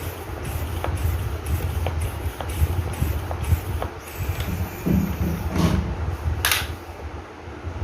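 Hand air pump being worked through an inflation needle into a rubber football, about two strokes a second, as the ball is topped up to hardness. The pumping stops about four seconds in, followed by a few handling knocks and a short hiss of air near the end.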